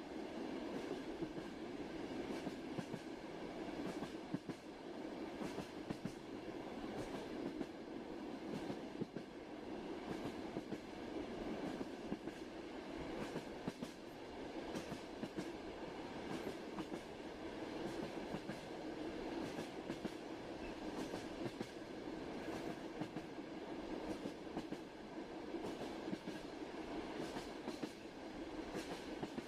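Train running steadily on the rails: a continuous rumble with frequent clicks of the wheels over the track.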